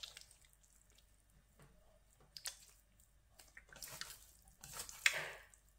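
Spatula stirring and fluffing cooked rice in a stainless steel pressure cooker pot: soft squishing of the rice with scattered light scrapes and clicks against the metal, the loudest scrape about five seconds in.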